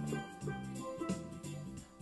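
Instrumental background music: a repeating bass line under a few held higher notes.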